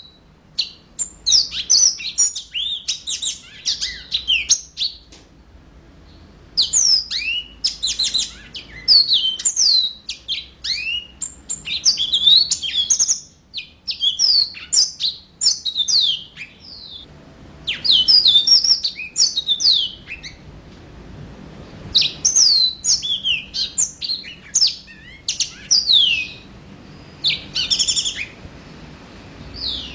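Yellow-fronted canary (mozambik) singing vigorously: fast, high chirps and trills in phrases of a few seconds, separated by short pauses.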